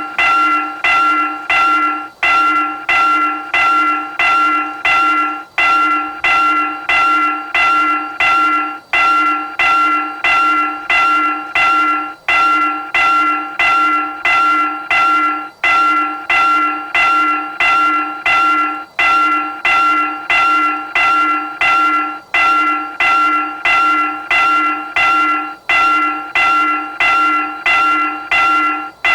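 Railroad crossing warning bell ringing continuously in a fast, even series of dings on a few fixed pitches. A brief gap about every three and a half seconds marks the repeating electronic signal.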